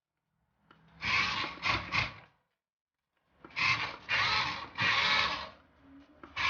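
Small electric motor and plastic gearbox of a Huina 1573 RC dump truck whirring in two bursts as it is worked from the remote, one about a second in and a longer one from about three and a half to five and a half seconds.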